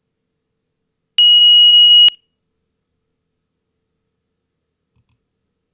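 A computer-generated beep from a C++ program's Windows Beep() call, set to 2900 Hz for 1000 milliseconds: one steady, high-pitched pure tone about a second long, starting and stopping with a click.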